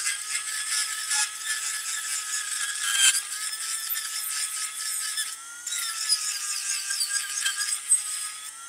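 Rotary tool with a small cutter grinding old soft solder off a brass saxophone strap-ring plate, to remove every trace before silver soldering: a steady high motor whine over scratchy cutting noise. The cutting eases briefly about five and a half seconds in, and the whine shifts slightly in pitch.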